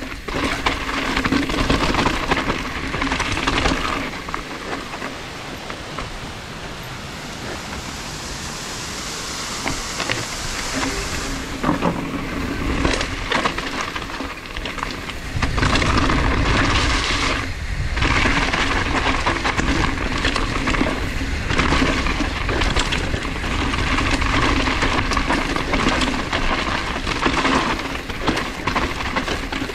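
Wind rushing over the camera microphone and the tyres and frame of a downhill mountain bike rumbling over a dirt trail, with sharp knocks and rattles over bumps in the middle stretch.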